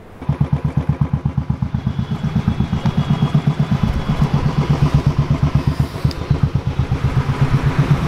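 Royal Enfield Stealth Black's single-cylinder engine running as the motorcycle is ridden at low speed, with a fast, even beat of exhaust pulses that starts just after the cut.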